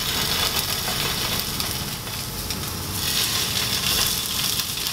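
Plaice fillets sizzling in a hot frying pan, laid in skin side down; the sizzle grows louder again about three seconds in.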